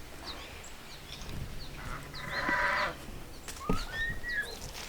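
Backyard chickens calling, with a drawn-out rising call late on, among repeated short high chirps of small birds and a brief rasping noise about two seconds in.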